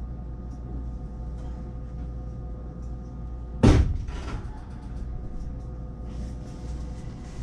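Train doors sliding shut, ending in one heavy thump about halfway through, over the steady hum of a stopped electric train.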